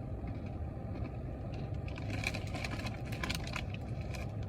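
Crisp crackling of popcorn being crunched, starting about two seconds in and lasting about a second and a half, over a steady low rumble.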